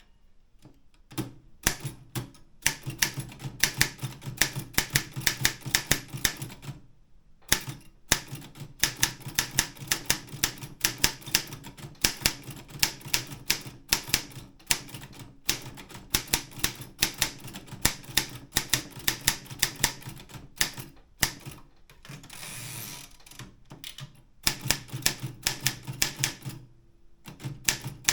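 East German Optima M12 manual typewriter being typed on in quick runs of sharp key strikes, type bars clacking against the platen. There are a few short pauses, and a brief rasping slide comes about two-thirds of the way through.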